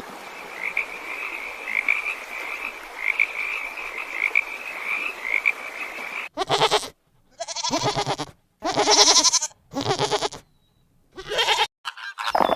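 Frogs croaking, one short call repeating a little more than once a second over a steady background hiss. About six seconds in it gives way to a handful of loud, separate animal calls, each cut off abruptly by silence.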